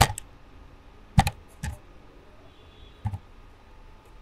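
A few sharp computer keyboard keystrokes, spaced irregularly, as a short command is typed.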